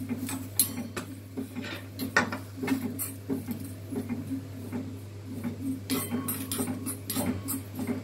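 Metal spoon stirring and scraping cumin seeds around a dry iron kadai, giving irregular clinks and scrapes over a steady low hum.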